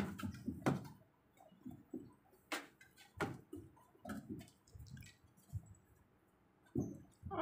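Kittens scampering and pouncing on a wooden board: irregular soft thumps and light ticks of paws and claws, with short quiet gaps.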